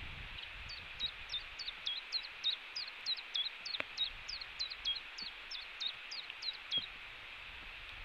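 A small bird singing: a series of about twenty clear, high, downslurred notes at about three a second, lasting some six seconds, over a steady outdoor hiss.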